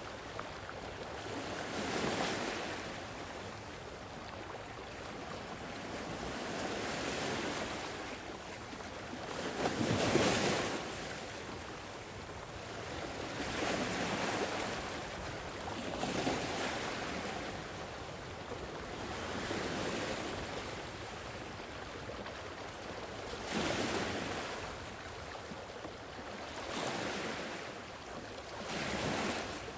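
Sea waves washing in and drawing back in slow swells every few seconds, one bigger wave breaking about a third of the way through.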